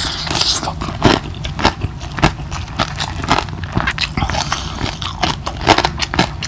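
Close-miked chewing of a mouthful of lechon kawali (deep-fried pork belly), with lip-smacking: a rapid, irregular run of short wet clicks and smacks.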